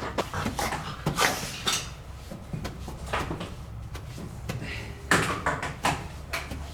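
Irregular clicks, knocks and clatter of hard objects being handled, several sharp knocks spread through, the loudest about five seconds in.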